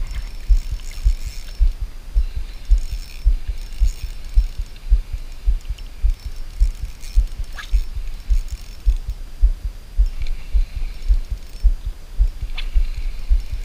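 Dull low thumps, about three a second, as an ultralight spinning reel is cranked to retrieve a micro jig, the handling knocking close to the microphone, with a couple of faint clicks.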